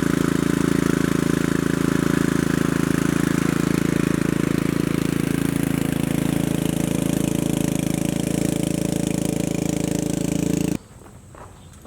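Riding lawnmower's engine running at a steady speed, cutting off abruptly about a second before the end.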